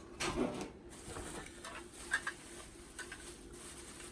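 Scattered light ticks and taps of sandblasting-cabinet parts being handled during unpacking, with a small cluster of knocks right at the start and single faint clicks after.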